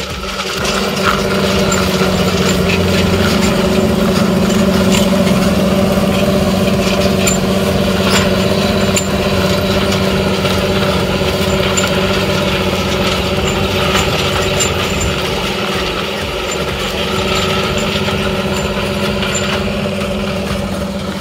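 John Deere 8430 tractor's 9.0 L six-cylinder turbo diesel running steadily at full throttle under heavy draft load, pulling a subsoiler's shanks through clay soil, with scattered sharp clicks. The engine sound grows louder about a second in.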